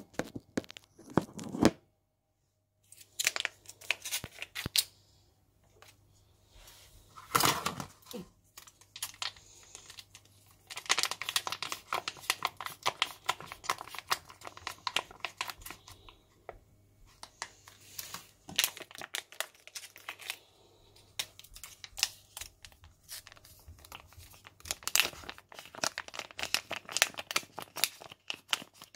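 Close rustling, crinkling and rubbing right at the microphone, in irregular bursts with short gaps between them and a brief drop-out about two seconds in.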